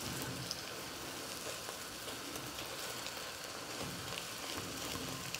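Eggs frying in oil in an enameled cast-iron pot, with a steady, faint sizzle.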